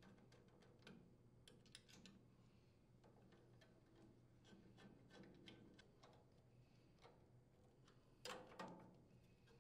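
Faint, scattered metallic clicks and ticks as a nut driver turns screws through a sheet-metal air filter base, with a louder clatter about eight seconds in.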